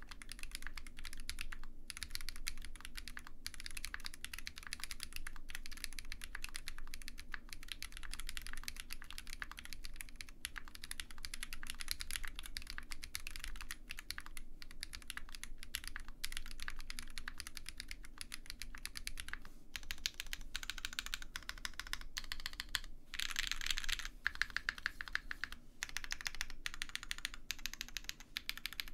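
Typing on an OwLab Mr Suit TKL mechanical keyboard with lubed Zaku switches, a POM plate, only the case foam fitted and GMK keycaps: a continuous run of keystrokes, with a louder, brighter flurry about four-fifths of the way through.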